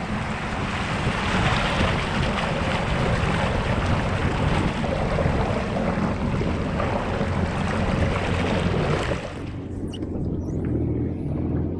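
Jet ski under way on the sea, its engine drone beneath heavy rushing wind and water noise, which drops off sharply about nine seconds in as the craft slows.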